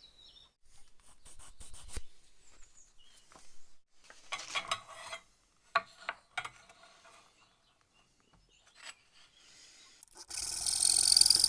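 Light knocks and scrapes of wooden pieces being handled and rubbed, then about ten seconds in a woodworking power tool's motor starts suddenly and runs loud and steady.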